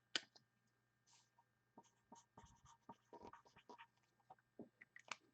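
Faint scratching and small taps of trading cards being handled, scattered irregularly, over a low steady hum.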